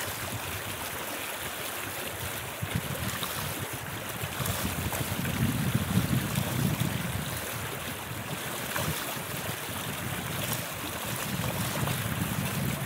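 River water rushing and splashing over a rock ledge at a small falls, a steady rush, with a low rumble swelling about five seconds in and again near the end.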